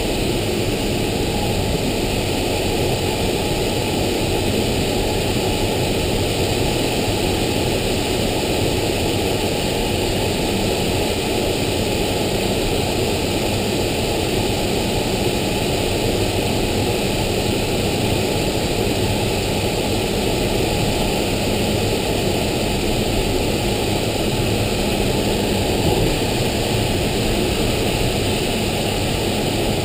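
Steady rush of air streaming past the cockpit canopy of an LS6 glider in flight.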